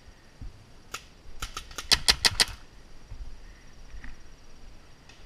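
Paintball marker firing: one shot about a second in, then a quick string of about eight sharp shots in just over a second.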